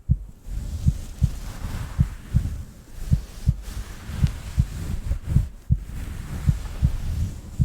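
Slow heartbeat, each beat a low double thump (lub-dub), a little under one beat a second, steady throughout, with a faint hiss behind it.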